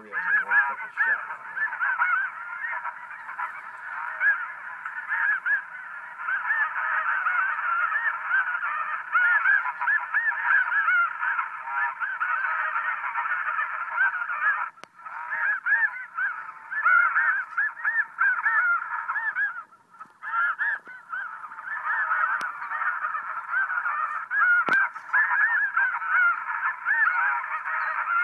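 A large flock of geese calling, many honking calls overlapping in a dense, unbroken chorus, with two short breaks about halfway through.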